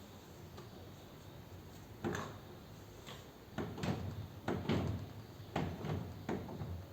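Several clunks and knocks of metal parts and tools being handled during motorcycle rear-end disassembly: one at about two seconds, then a busy run of them in the second half.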